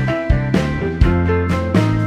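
Background music: an upbeat track with plucked guitar-like notes and a steady beat, about two strokes a second.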